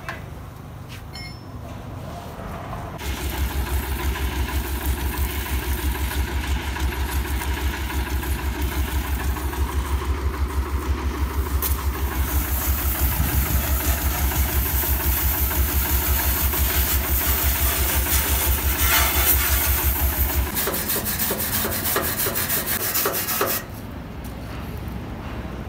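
Mahindra CJ 500 DI jeep's diesel engine running with a steady pulsing beat. It comes in suddenly about three seconds in and stops abruptly about twenty seconds in, followed by a few seconds of rattling clicks.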